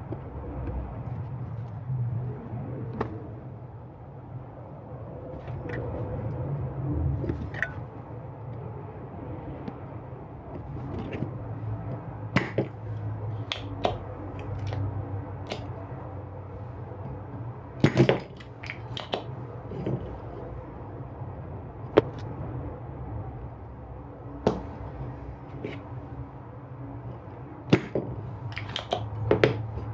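Scattered sharp clicks and taps of small tools against a smart plug's circuit board and its parts, as it is desoldered and pried apart, over a steady low hum.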